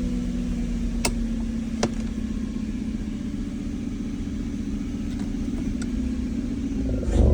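BMW E39 540i's V8 engine running at idle with a steady low hum, broken by two sharp knocks about one and two seconds in and fainter ticks later. The knocks match the knocking that comes with vibration when the car is in R or D. The sound grows louder just before the end.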